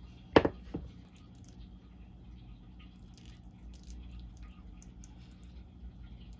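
A white plate set down on a wooden tray: one sharp clack followed a moment later by a smaller knock. After that, faint soft scraping and small clicks of a wooden spoon digging into fried rice.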